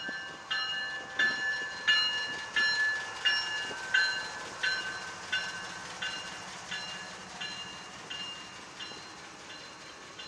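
A railroad bell ringing steadily, about three strokes every two seconds, each stroke ringing out before the next and the whole slowly growing fainter.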